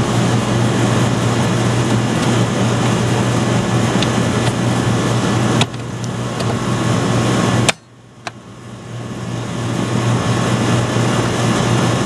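Air conditioner condensing unit running with a newly fitted hard start kit: a steady compressor hum under the outdoor fan's rushing noise, showing the compressor has started. A sharp click comes about five and a half seconds in and another about two seconds later. After the second click the sound drops away and swells back over the following seconds.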